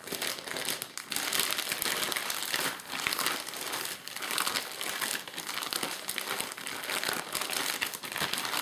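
Plastic zip-top bag crinkling and rustling as it is shaken with chicken wings inside to coat them in seasoned flour, an irregular, continuous shaking.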